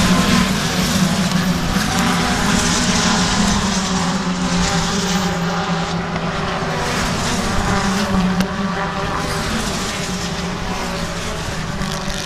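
A pack of touring race cars running at full throttle past the trackside barrier. The engines blend into one dense, steady note that eases off slightly towards the end as the cars pull away.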